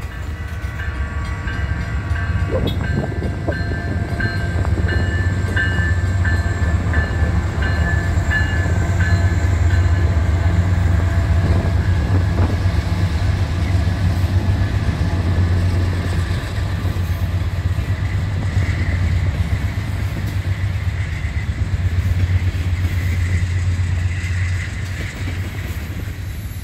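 Freight train with diesel locomotives passing close by: a deep, steady engine rumble that swells as the locomotives go past, then the freight cars rolling by. A high ringing pulses about twice a second through the first ten seconds.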